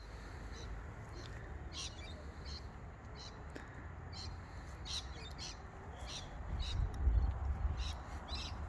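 Birds chirping outdoors: a dozen or so short, high calls scattered throughout, over a low wind rumble on the microphone that grows stronger about seven seconds in.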